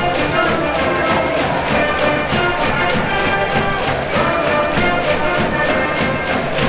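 A high-school brass band's cheering music in the stands, with held brass notes over a steady drum beat.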